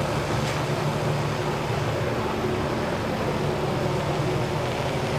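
Police MD 500-series turbine helicopter lifting off and climbing away, its engine and rotor making a steady low hum over a rushing noise.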